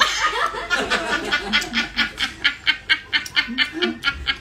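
A woman laughing hard: a long, even run of short, high cackles, about four or five a second, starting with a loud burst.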